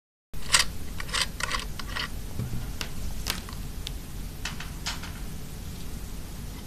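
Handling noise from connecting fittings and cords to an ultrasonic dental scaler's control unit: a series of short plastic clicks and rustles, several close together in the first two seconds and a few more spread out after, over a low steady rumble.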